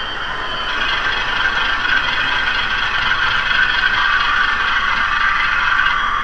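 HO-scale model train running: the diesel engine sound of the MRC 1803 sound decoders in Walthers Proto 2000 PA and PB locomotives, played through their small speakers, steady with little bass, mixed with the rolling noise of the cars on the track.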